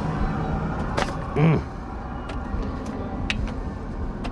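Diesel engine of heavy logging equipment running steadily, with scattered clanks and knocks. A brief, louder pitched sound comes about a second and a half in.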